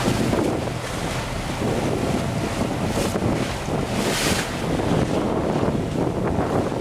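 Wind buffeting the camcorder microphone over the steady low drone of a boat under way.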